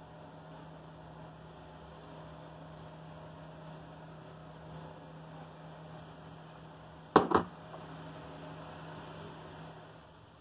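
A steady low hum, with two sharp knocks in quick succession about seven seconds in.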